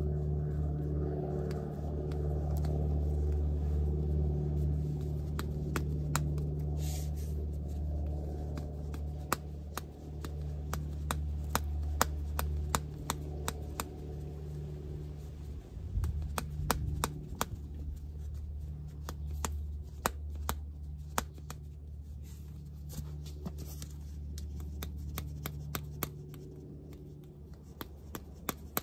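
Rubber flip-flops slapping against bare heels: sharp, irregular slaps that come thick and fast from about six seconds in, over a steady low hum.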